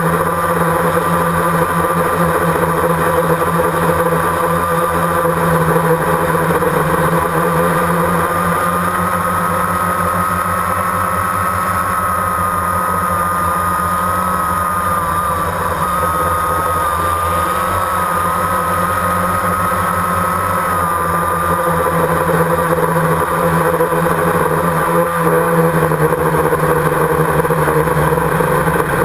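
Motors and propellers of the drone carrying the camera, running steadily in flight. It makes a loud, steady whine whose pitch rises a little and wavers through the middle, over a lower hum.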